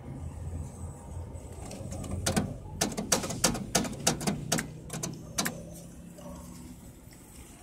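Coin-return button of a Logitel coin payphone pressed over and over: a quick, uneven run of about fifteen sharp metallic clicks lasting about three seconds, starting about two seconds in. No coins come back, which the uploader blames on a device fitted inside the phone that stops returned coins from dropping.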